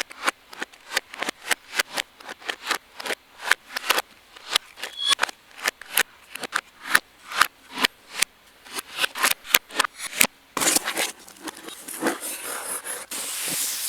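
Socks and their packaging being handled and opened: a quick run of crisp crinkles and snips, giving way to a continuous rustle from about ten seconds in.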